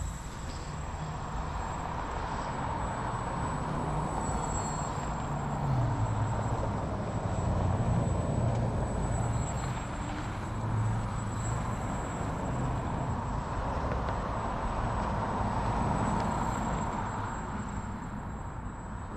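Electric motor and propeller of a small 3D foam RC airplane buzzing in flight, swelling and easing as it manoeuvres, with a low rumble underneath.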